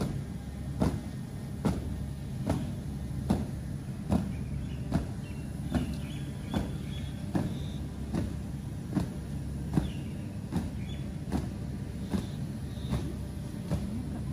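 Evenly spaced thuds, about one every 0.8 seconds, keeping the cadence for a squad marching in step, over a steady low rumble.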